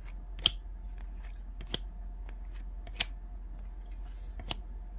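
Topps baseball cards being flicked off a stack one at a time, each card leaving the pile with a sharp snap: four snaps, roughly every second and a half, over a steady low hum.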